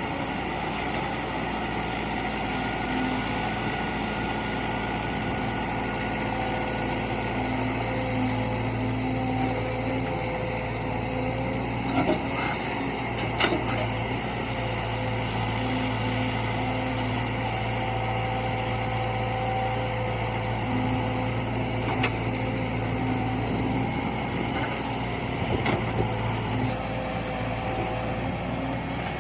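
A heavy construction machine's engine running steadily, with a few short knocks and clanks about halfway through and again near the end.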